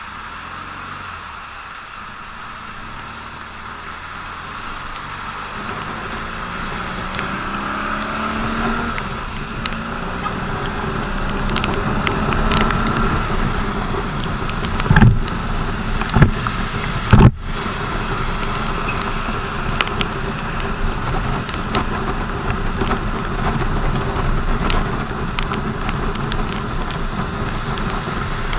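BMW R 1200 GS boxer-twin motorcycle engine accelerating, its pitch rising over the first ten seconds or so, then running steadily under wind and road noise. A few loud thumps land about halfway through.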